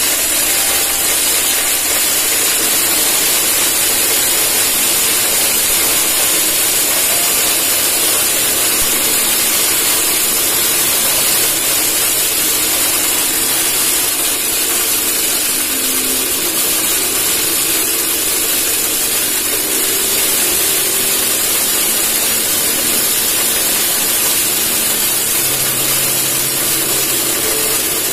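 Homemade corn cracker built from a biscuit tin and driven by an electric motor, running steadily while it breaks up dried corn kernels: a continuous, high, hiss-like grinding noise.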